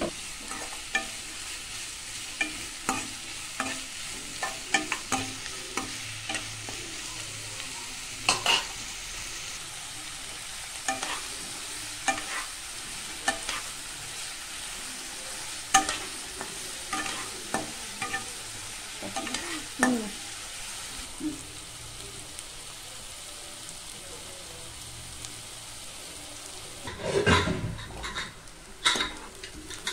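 Chopped onions sizzling in hot oil in a nonstick kadai while a spatula stirs and scrapes them, with frequent clicks and scrapes of the spatula on the pan over a steady sizzle and a louder run of scraping near the end. The onions are being sautéed until golden.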